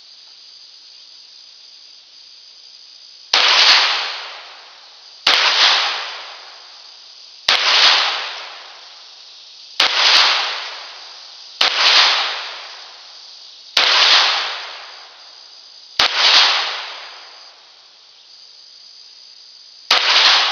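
Ruger Mk III 22/45 .22 LR pistol firing eight single shots, spaced about two seconds apart, with a slightly longer pause before the last. Each sharp report dies away over about a second. A faint steady insect drone runs underneath.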